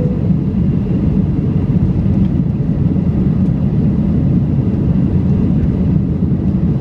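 Cabin noise of an Airbus A320-211 climbing out just after take-off, heard inside the cabin: a loud, steady, deep roar of its CFM56 engines and the rushing air.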